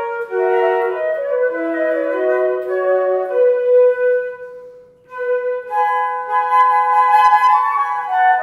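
Flute trio: three flutes playing a slow Andante in three parts. A held note fades into a brief break about five seconds in, then the three parts come back in.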